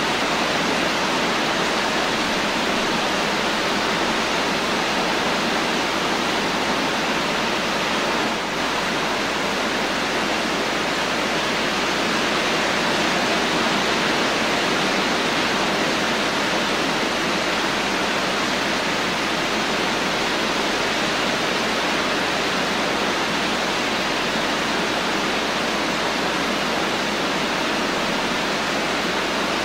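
Steady rain falling as a dense, even hiss, with no single drops standing out; the level dips briefly about eight seconds in.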